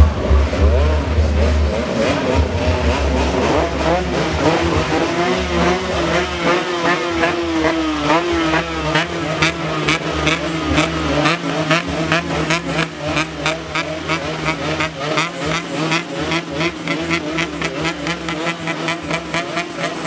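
Several Yamaha RX King 135 cc two-stroke motorcycle engines being revved hard over and over, the pitch swooping up and down. From about halfway, quick regular throttle blips come in a fast rhythm.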